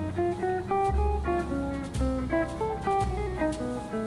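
Background music: a plucked guitar melody over a bass line, the notes changing every second or so.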